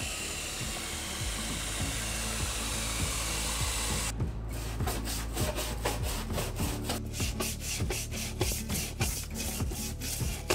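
Water pouring steadily into a plastic bucket for about four seconds. Then a toilet brush scrubs a bleach-and-water solution over the plywood floor under an RV slide-out to clear mold, in quick rasping back-and-forth strokes, a few a second.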